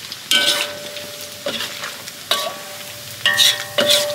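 Metal spatula scraping and clinking against a steel wok and a wire strainer while beef slices are scooped out of hot oil. About five ringing metal clinks over a steady sizzle of frying oil.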